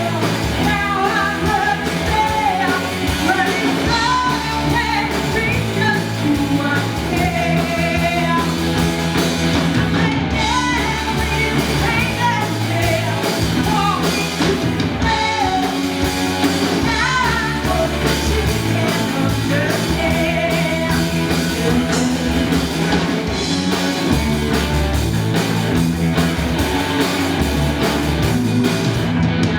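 A rock band playing live, with a lead singer over electric guitar and drums.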